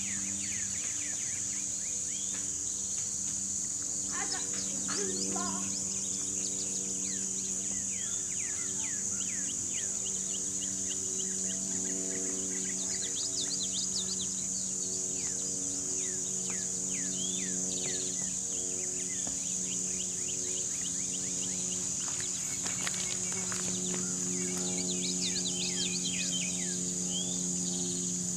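Outdoor ambience of a steady high insect drone with many quick, downward-sliding bird chirps scattered through it. Beneath them runs a low steady hum of several held tones that change every few seconds.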